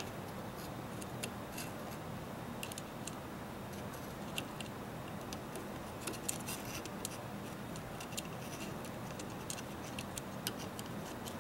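Faint, irregular light metal clicks and ticks as a steel tool is worked against an AR-15's buffer tube, receiver end plate and sling loop. The clicks come in small clusters, thickest past the middle and again near the end.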